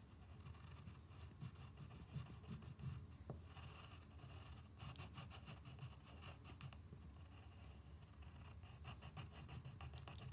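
Faint pencil scratching on paper in rapid strokes, coming in several bursts with short pauses between.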